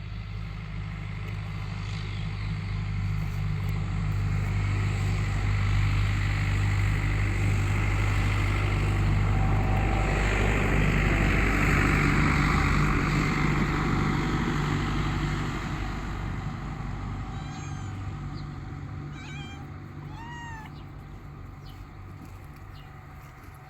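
A motor vehicle's engine hum grows louder over about ten seconds, then fades away. Near the end come several short, high calls that rise and fall in pitch.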